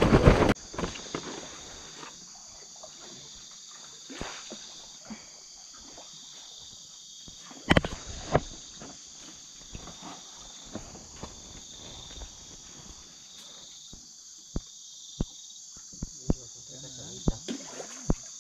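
A night chorus of insects such as crickets, a steady high-pitched chirring that pulses slightly. Scattered sharp knocks and clicks break in, the loudest one about eight seconds in, and they come more often near the end.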